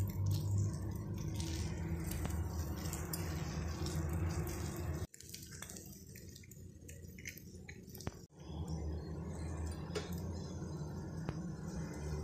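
Egg dosa cooking on a hot tawa: faint sizzling with scattered light clicks and clinks, over a steady low hum. The sound drops out sharply twice, near the middle and again a few seconds later.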